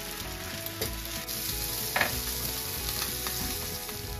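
Potatoes frying in hot oil in a pan: a steady sizzle with a few sharp pops of oil.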